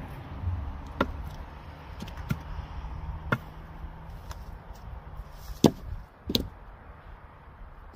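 A steel-headed hand tool chopping into wood: about five sharp, irregularly spaced knocks, the loudest a little past halfway.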